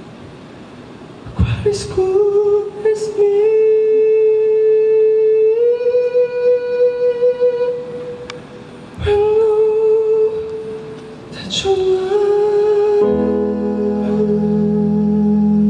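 A male singer holds long, high wordless notes, with short breaks for breath between phrases. About thirteen seconds in, a sustained keyboard chord comes in and holds under the voice.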